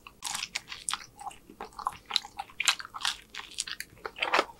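A person chewing a mouthful of pepperoni pizza close to the microphone: a quick, irregular run of wet smacks and crunches, several a second.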